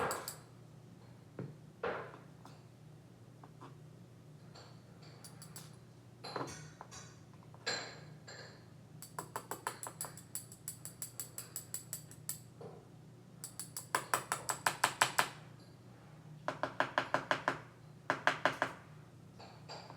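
Metal clicking and tapping from a disassembled Abus Wavy Line padlock being worked on. A few single clicks come first, then from about nine seconds in, four runs of quick ringing taps, several a second, each run lasting from half a second to three seconds.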